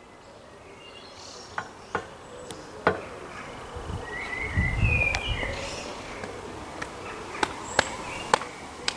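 Outdoor ambience: a few short high chirps about halfway through, with a brief low rumble at the same time and scattered light clicks throughout. No bells are ringing.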